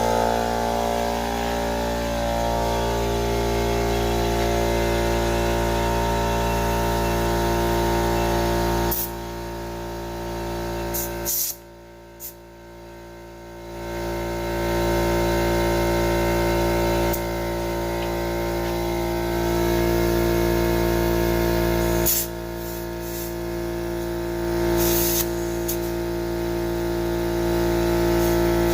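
A motor running with a steady hum. It drops off about nine seconds in, goes much quieter for a few seconds, then comes back to full level, with a few short clicks along the way.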